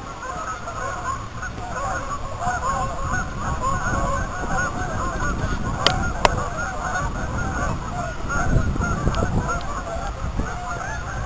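A flock of geese honking in flight, many calls overlapping without a break. Two sharp clicks about six seconds in.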